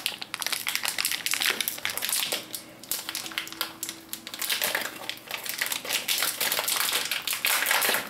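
Crinkling of a metallised anti-static bag being handled and pulled at its sealed end, as a fast, irregular run of crackles with a quieter stretch in the middle.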